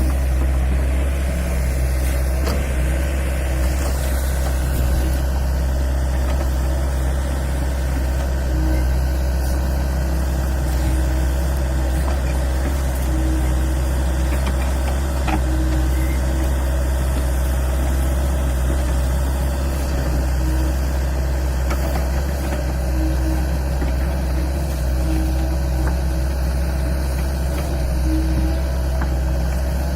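LiuGong 908E excavator's diesel engine running steadily at idle, a constant low engine note.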